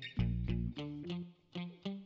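Background music of quick plucked notes over a bass line.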